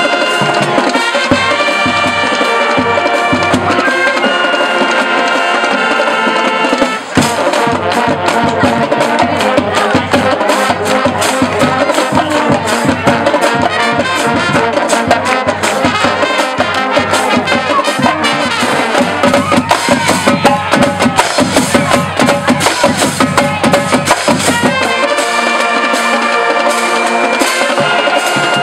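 High school marching band playing a stand tune: trumpets, mellophones and sousaphones hold sustained chords, then after a brief break about seven seconds in the drums drive a busy passage under the brass, and held brass chords return near the end.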